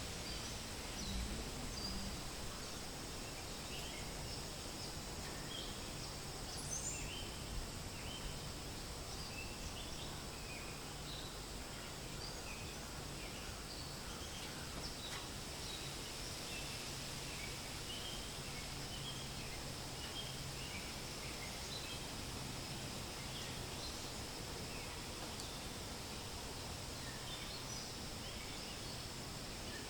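Forest ambience: many short bird chirps scattered throughout over a steady hiss of wind in the leaves, with a thin steady high buzz underneath.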